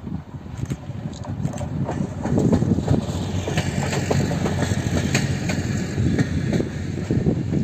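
The 1936 Tatra Slovenská strela streamlined railcar passing close. Its engine runs and its wheels click over the rail joints, getting louder from about two seconds in and staying loud until near the end.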